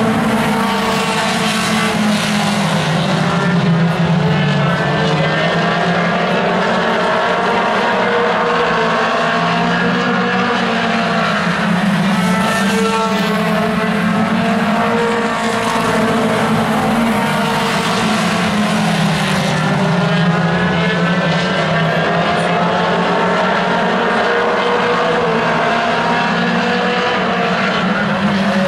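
Several mini stock race cars lapping a short oval at once, their engines running loud and steady, with overlapping tones rising and falling in pitch as the cars speed up and slow down around the track.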